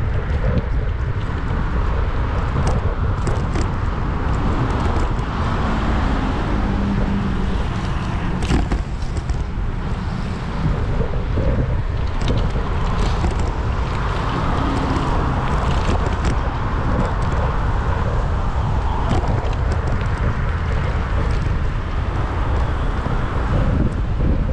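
Wind rushing over a camera microphone on a moving bicycle, a steady low rumble, with road traffic passing and a few faint clicks.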